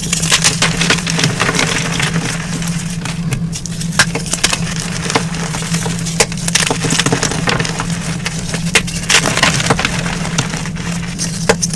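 Blocks of gym chalk being crushed, a dense run of crunching and crackling with many sharp cracks, over a steady low hum.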